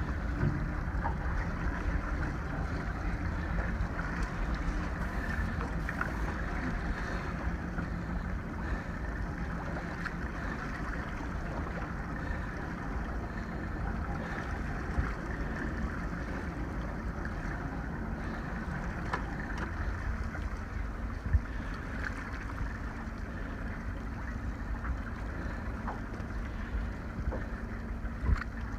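Steady wind and sea noise aboard an open fishing boat, with a faint low hum underneath and a few small knocks.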